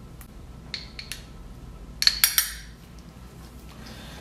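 A metal spoon clinking against dishes while garlic-ginger paste is scooped out and tapped off: a few light clinks, then a quick run of three or four louder ringing clinks about two seconds in.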